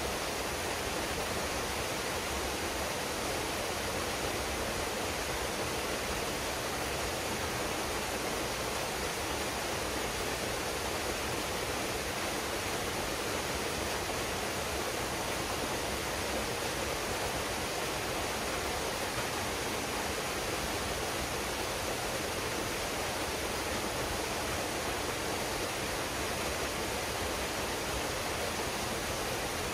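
Waterfall pouring into a pool: a steady, even rush of falling water with no breaks or changes.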